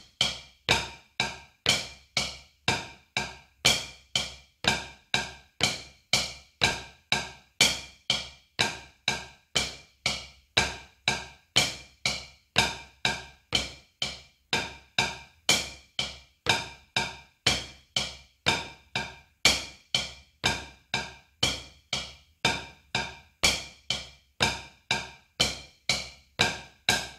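Drumsticks striking a rubber practice pad in a steady, even stream of sharp taps, about two a second, playing double strokes (left-left, right-right) led by the left hand. The strokes stop near the end.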